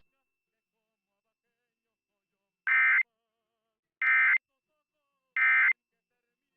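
Emergency Alert System end-of-message (EOM) signal: three identical short bursts of SAME digital data tones, about a second and a quarter apart, starting a little under three seconds in. They mark the end of the alert.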